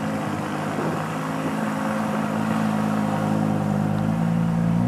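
Audi R8 V10 Plus's 5.2-litre V10 engine idling steadily.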